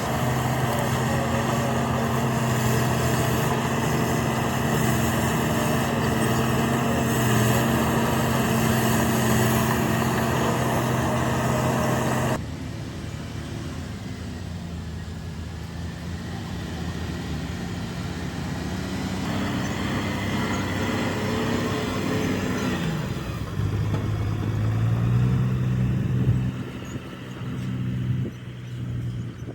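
Diesel engines of heavy earthmoving machines running steadily. The sound drops and changes suddenly about twelve seconds in, and an engine revs up a little past two-thirds of the way through.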